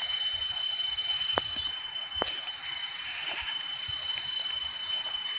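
Field insects chirring in a steady high drone. Two sharp clicks come a little under a second apart, about one and a half seconds in.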